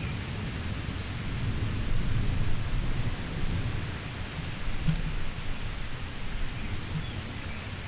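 Heavy rain falling steadily, with a low rolling rumble of thunder that swells about two seconds in and then fades.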